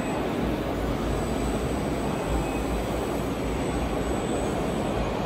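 Steady background roar of a large, busy exhibition hall: an even rumble and hiss with a faint high whine running through it.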